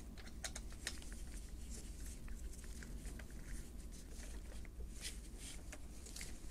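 Faint, scattered light clicks and scrapes of a screwdriver turning a screw into the metal base plate of a jigsaw, with the metal parts shifting against each other.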